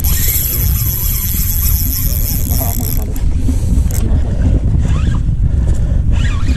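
Kastking Sharky III spinning reel cranked while fighting a fish, a mechanical whirr for about the first three seconds that then stops. A steady low rumble runs underneath.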